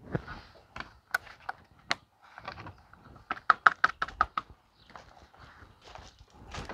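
Ford Flex plastic cowl trim panel being pressed down and snapped into place along the base of the windshield: a series of sharp clicks and knocks, with a quick run of clicks about three to four seconds in.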